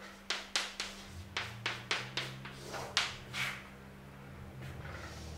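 Chalk striking and scraping on a chalkboard while letters are written: a quick run of short strokes, several a second, with a longer stroke for the underline just after three seconds in, then the writing stops.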